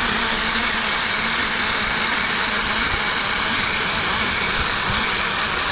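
A zipline ride: the trolley's pulleys running fast along the steel cable, with rushing air, as a steady, even hiss and whir. It starts and stops abruptly.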